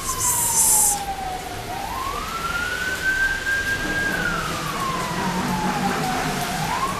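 Emergency vehicle siren wailing: a single tone that rises quickly, holds, then falls slowly, about once every four seconds. A short hiss sounds near the start.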